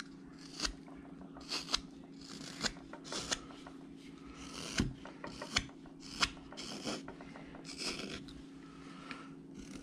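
Carving knife slicing thin shavings off a wooden dog carving: a series of short, crisp cuts, roughly one a second.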